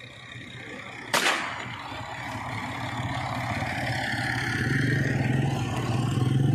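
A single shotgun shot about a second in, with a short decaying echo. After it, a vehicle engine runs steadily and grows louder.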